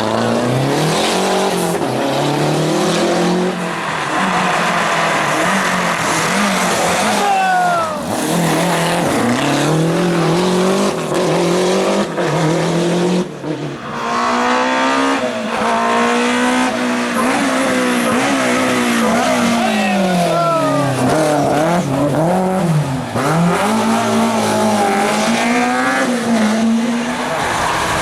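Rally car engine driven hard. Its pitch climbs repeatedly and drops back with each gear change and lift, with a brief lift off the throttle about halfway through.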